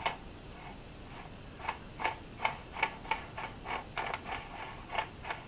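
Small metal clicks and clinks as a knurled nut and collar are fitted and turned by hand onto the crank shaft of an Atlas 7B shaper, with the stroke-adjusting parts knocking together. It is an irregular string of short clicks, about two or three a second from about one and a half seconds in.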